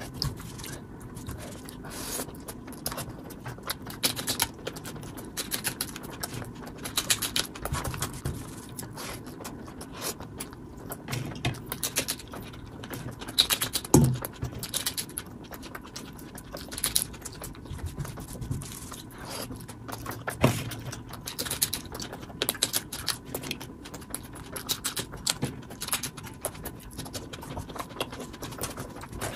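Fingers mixing and scraping rice and noodles with curry gravy across a wooden plate, alternating with close-up eating: a dense run of short wet clicks, squelches and scrapes. A couple of sharper clicks stand out around the middle.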